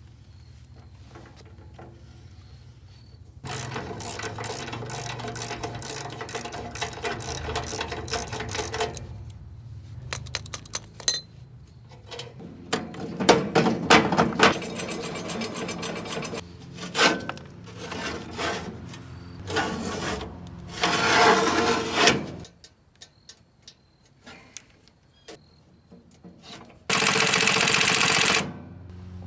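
Repair work with tools: several separate bursts of scraping, rasping mechanical noise, each a few seconds long, ending in a loud steady hiss near the end.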